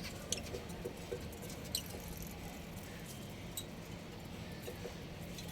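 Budgies giving a few short, high chirps, spaced out, over a faint steady low hum.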